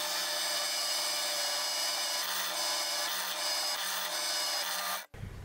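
Drill press running, its twist bit boring through an aluminium bar: a steady grinding hiss of the cut over the motor's low hum. It cuts off suddenly near the end.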